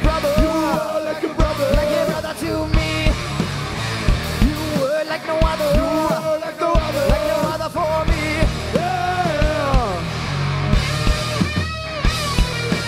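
Live rock band playing: electric guitars, bass and drums with a steady beat, under a long, bending melody line.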